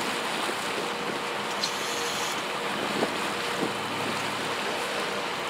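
Steady sea and wind noise around a charter fishing boat, with a low, steady engine hum underneath.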